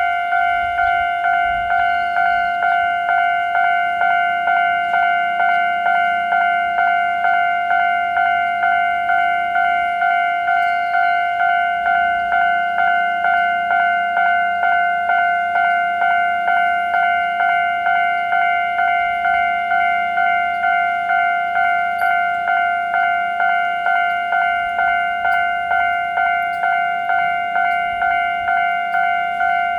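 Japanese railroad crossing warning bell ringing its slow, steady 'kan-kan' alarm: an even chain of ringing strikes, each fading a little before the next, meaning the crossing is active for an approaching train.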